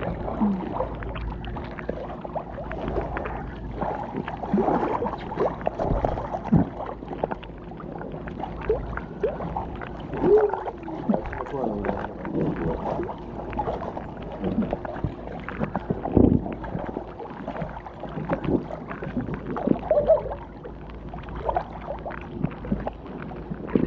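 Pool water sloshing and gurgling against a waterproof action camera held at the waterline. It gives irregular muffled splashes and knocks as small waves wash over the microphone.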